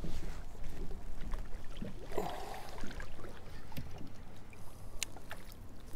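Water lapping against a plastic kayak hull, with a low wind rumble on the microphone and scattered small clicks and knocks from gear in the boat.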